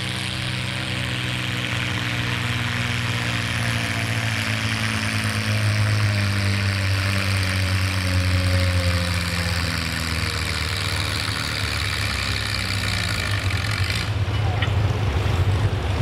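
Vintage farm tractor engine running steadily under load as it pulls a weight-transfer sled at slow speed, a low drone with a hiss above it that cuts off near the end.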